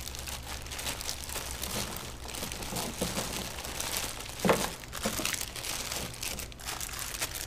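Plastic packaging bags crinkling as small bagged parts are handled and packed back into a cardboard box, with one louder knock about four and a half seconds in.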